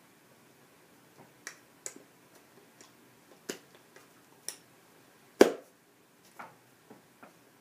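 Scattered sharp clicks and snaps at an uneven pace from hand movements close to the microphone, with one louder knock about two-thirds of the way through.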